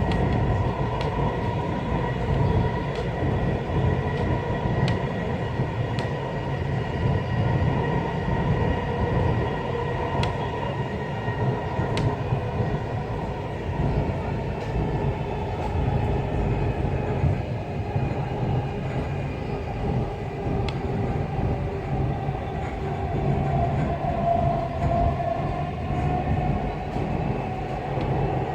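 Dubai Metro train running along the track: a steady rumble with a faint electric whine and a few sharp ticks, heard from inside the car.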